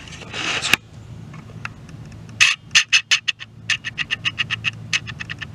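A sliding glass door rolls along its track and stops with a click. About two seconds later comes a rapid series of short, sharp clicks, several a second, lasting about three seconds.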